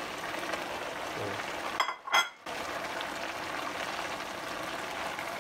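Sukiyaki broth simmering in a frying pan of beef, tofu and vegetables, a steady bubbling hiss. It drops out briefly about two seconds in, with a couple of short clicks around the break.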